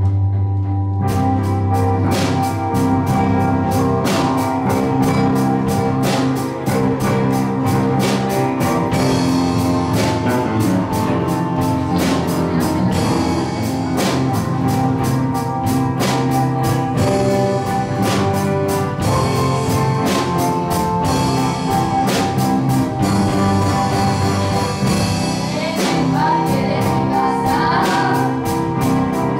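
Live band playing a blues, with acoustic guitars, electric bass and drum kit, and a girl singing. A held low bass note opens it, and about a second in the drums come in with a steady beat.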